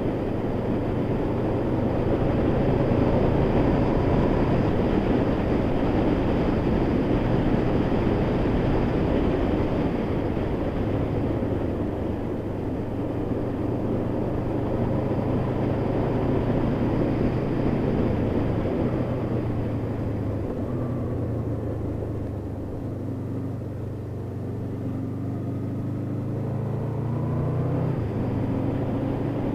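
Honda VFR800's V4 engine running as the motorcycle is ridden, under a steady rushing noise. The engine eases off a little past the middle, then its pitch climbs and drops again near the end.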